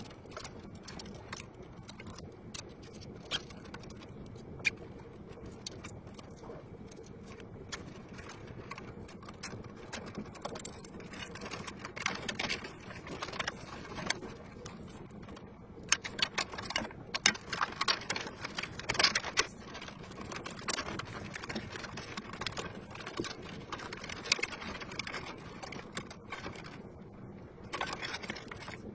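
Irregular clicking and clattering of small hard objects being handled, busiest in the middle stretch.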